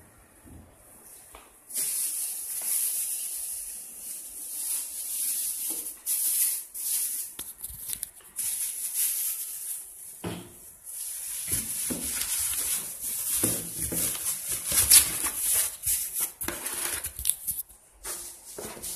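Plastic wrapping crinkling and rustling against cardboard as a ceramic coffee press is handled and packed into its box, with a few light knocks. It starts about two seconds in and goes on in uneven bursts.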